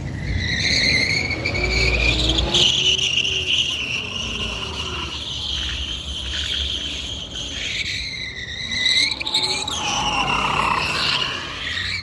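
Pickup truck's tyres screeching on pavement during a smoky burnout. It is a high, wavering squeal that dips and climbs in pitch, with the engine running underneath.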